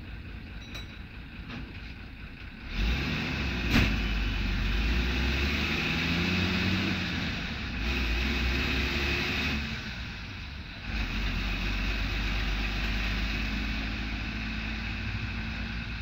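Tata diesel engine of an MSRTC bus, heard from the driver's cab beside the engine cover, running under load as the bus drives. It gets louder about three seconds in, drops away briefly for a gear change just past halfway and picks up again, with a single sharp knock about four seconds in.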